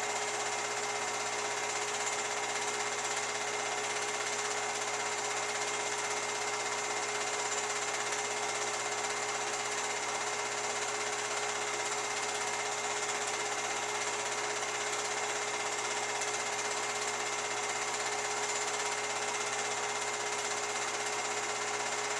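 Film projector running: a steady mechanical whir with a few fixed humming tones under a broad hiss.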